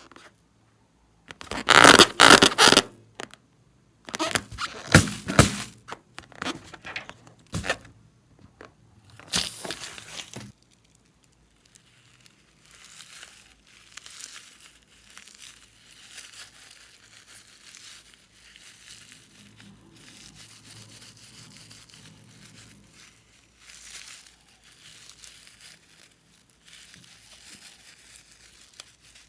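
Slime being squeezed, stretched and torn by hand, crackling and tearing. There are three loud bursts in the first ten seconds, and then softer, steadier crinkling.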